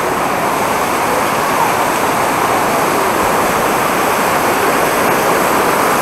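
A fast mountain stream running over rocks and small rapids: a loud, steady rush of water.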